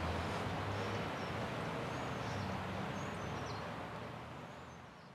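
Steady outdoor background rumble with a few short bird chirps, fading out toward the end.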